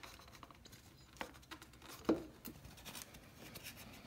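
Faint clicks and a few light knocks of a Harley-Davidson Shovelhead's cast-iron cylinder being worked up off its piston by hand; the loudest knock comes about two seconds in.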